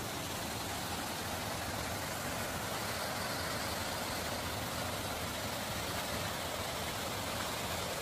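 Waterfall rushing steadily as its water cascades over rocks into a stream.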